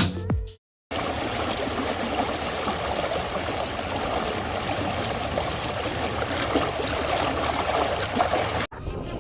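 Steady rushing noise that starts about a second in and cuts off suddenly near the end, with background music fading out at the start and coming back at the end.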